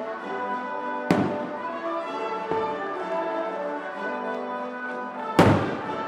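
Fireworks aerial shells bursting with sharp bangs over orchestral brass music: one about a second in, a smaller one a little later, and the loudest near the end.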